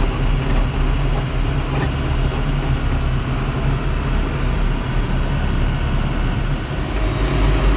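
John Deere 5100-series tractor's diesel engine running steadily as it drives along the road, heard from inside the cab: a constant low drone with road noise.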